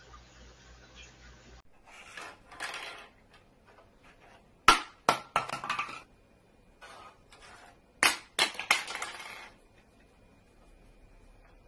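Small Christmas house ornaments clinking and knocking on a wooden shelf as a cat paws at them, in two clusters of sharp clinks a few seconds apart.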